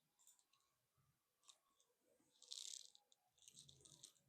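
Near silence: room tone with a few very faint clicks and a soft rustle.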